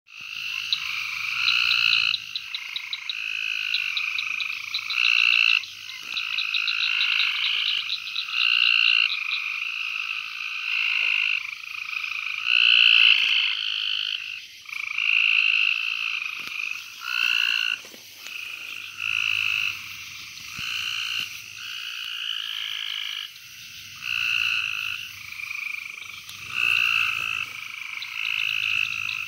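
A chorus of frogs and toads calling. Many short trilled calls overlap and follow one another throughout, with a fast series of ticks in the first several seconds.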